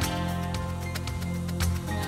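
Instrumental background music with held bass notes and light percussion.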